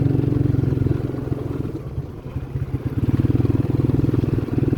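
Small motorcycle engine running with a fast, even pulse, easing off about two seconds in and picking up again a second later.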